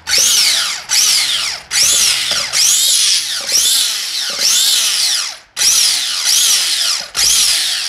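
Electric hand mixer running with its beaters churning stiff, crumbly cooked choux pastry dough. The motor's whine rises and falls in repeated swells about once a second, with short dips as the beaters dig into the dough.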